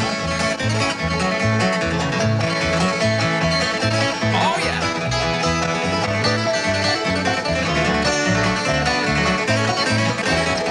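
Instrumental break of an old-time string band: a picked acoustic guitar lead over clawhammer banjo, with a slide guitar gliding between notes about four seconds in and a steady rhythmic bass line underneath.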